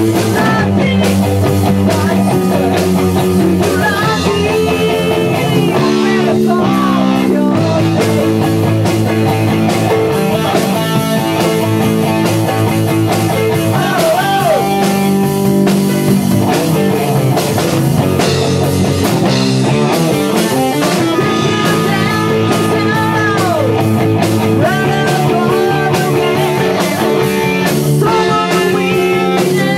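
A rock band playing live in a rehearsal studio: a Pearl drum kit and electric guitar, loud and continuous.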